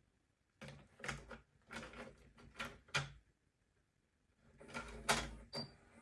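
A series of short mechanical clicks and clunks in four bursts, the last and longest about three-quarters of the way through.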